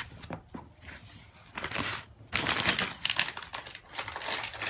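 Crinkling and rustling of plastic, with a few sharp clicks near the start, as the plastic self-leveling tile clips are handled.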